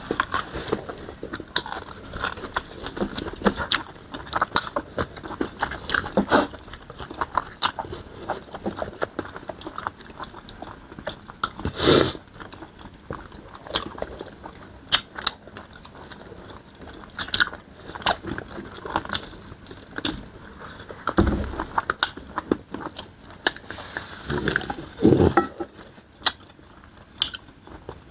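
Close-up chewing and biting of tough smoked chicken: irregular crunches and clicks, with a few louder crunches.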